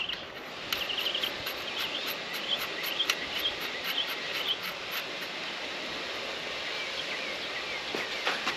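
Insects chirping, with short chirps about twice a second and a fine high ticking over a steady background hiss. A few light clicks come in around three seconds and near the end.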